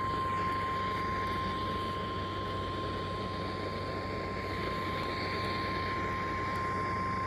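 NOAA Weather Radio 1050 Hz warning alarm tone: a single steady beep over radio static, the signal that a severe thunderstorm warning message follows.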